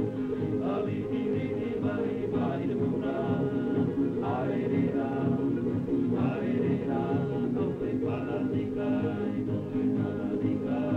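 Background music: a choir of voices singing in harmony over held chords, with a dull, muffled top end.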